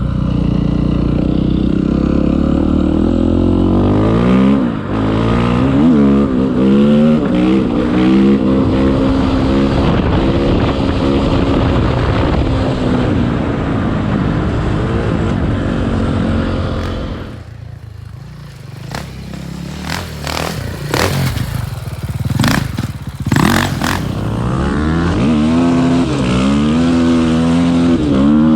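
KTM 450 EXC-F dirt bike's single-cylinder four-stroke engine revving up and falling back again and again as it is ridden off-road. After about 17 seconds the throttle shuts and the engine drops away for several seconds, with sharp knocks and clatter, then it pulls hard again near the end.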